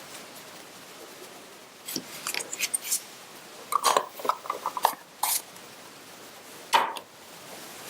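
Hard plastic and metal parts of a Vogel VCPA 5001 printer being handled: a cluster of light clicks and clatters, a second, louder run of rattling clicks, and a single sharp click near the end.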